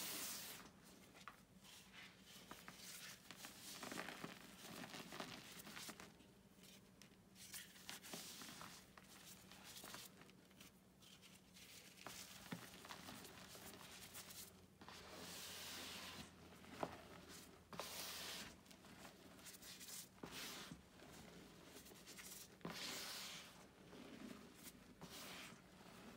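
Hands squeezing, crumbling and sifting powdered gym chalk: soft crunching and hissing swishes of powder pouring through the fingers, in irregular handfuls with a few louder swishes.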